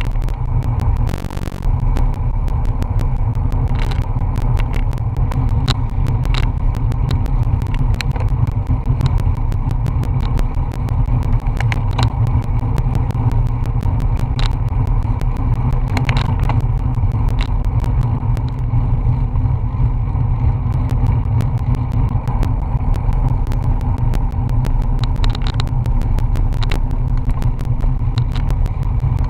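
Wind rushing over a bike-mounted action camera's microphone at about 20 mph, a loud steady roar mostly in the low end, with many small clicks and rattles from the bicycle rolling over the road surface.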